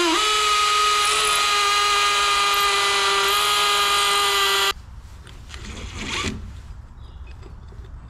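Power drill running: a steady motor whine that steps up slightly in pitch right at the start, holds, then cuts off suddenly a little over halfway through. After it, quieter knocking and handling noises with one brief louder clatter.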